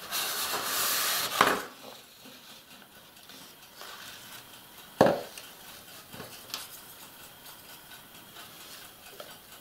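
Paper towel rustling as it is wiped over a plastic model hull to take off excess rust paint, loudest in the first second and a half. Then quiet handling with one sharp knock about five seconds in and a few faint ticks.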